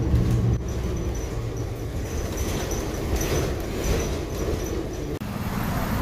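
Steady rumble of moving vehicles, with a thin high whine that comes and goes.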